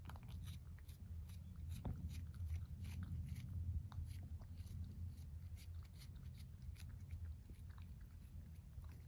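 A cat chewing and crunching something with its head down among dry leaves: a quick, irregular run of small crisp crunches over a low steady rumble.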